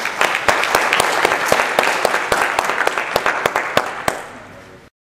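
Audience applauding, with many hands clapping together; the applause dies down after about four seconds and then cuts off abruptly.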